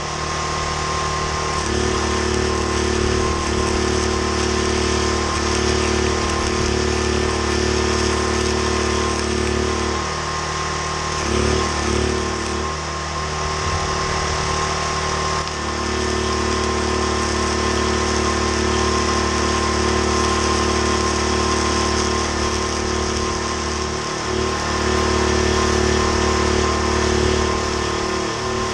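Portable generator engine running, its engine speed stepping up and down several times. The owner says this generator keeps stalling.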